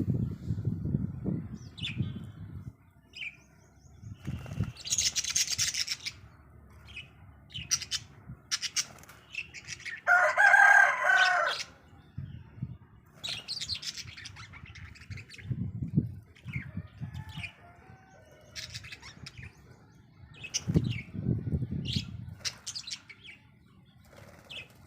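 Budgerigars scuffling with each other: bouts of wing flapping mixed with short high chirps, and a loud harsh squawk about ten seconds in.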